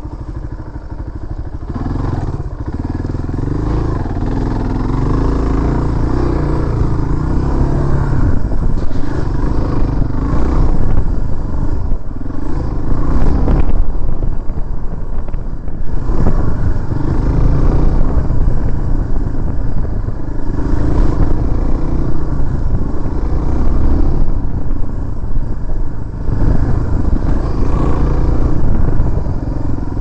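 Dual-sport motorcycle engine running loud as the bike rides a rough dirt trail, the revs rising and easing off every few seconds.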